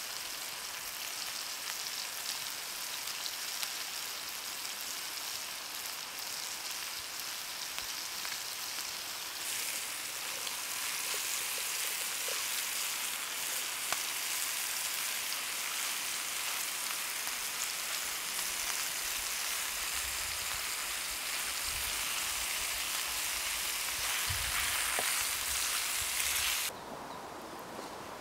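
Sliced bell peppers sizzling in a frying pan over a campfire: a steady frying hiss that gets louder about a third of the way in and cuts off suddenly near the end.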